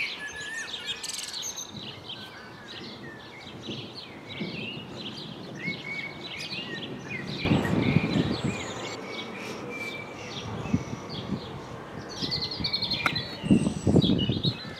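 Garden birds chirping and singing, many short calls overlapping. About halfway through a louder low rushing noise comes in and keeps on, with stronger bursts near the end.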